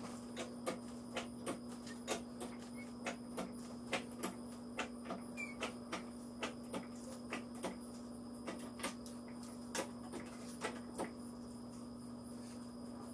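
Hydraulic floor jack being pumped to lift a car, a click on each stroke of the handle, about two or three a second, stopping about eleven seconds in. A steady low hum runs underneath.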